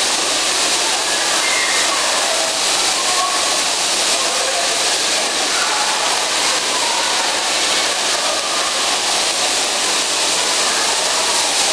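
Steady, even hiss of ambient noise around a bumper-car rink, with faint voices underneath.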